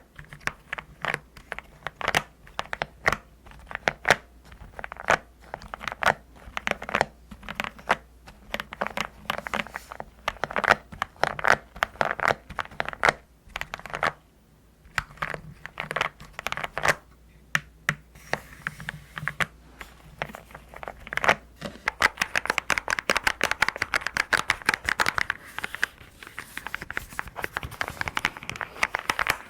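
Custom mechanical keyboard keystrokes with a rounded, pebble-like "dogak dogak" sound: separate presses at an uneven pace, then quick continuous typing from about two thirds of the way in.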